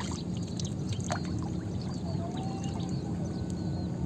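Water trickling and lapping against the side of a small wooden boat, with a light knock about a second in.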